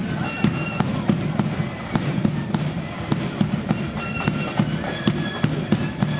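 Marching flute band playing a tune: short high flute notes over loud, sharp snare and bass drum strokes in a steady march beat.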